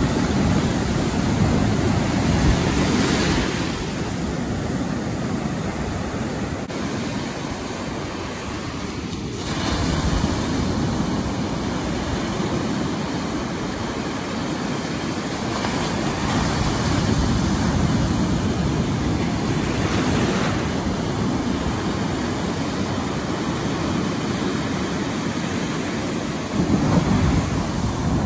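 Ocean surf breaking on a sandy beach: a continuous rushing wash that swells louder each time a wave breaks, about every seven seconds.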